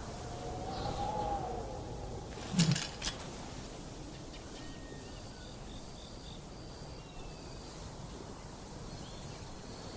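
Outdoor ambience with faint bird chirps. A short wavering call comes near the start, and two sharp knocks follow close together a little later.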